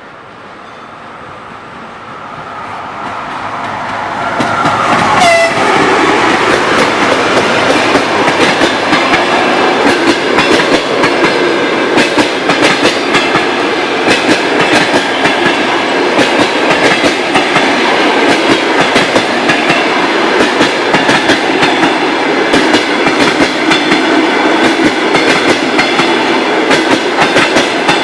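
Electric passenger locomotive and its train approaching and passing at speed. The rumble grows louder over the first four seconds, a brief tone drops in pitch as the locomotive goes by about five seconds in, and then the coaches' wheels run by with a steady clickety-clack over the rail joints.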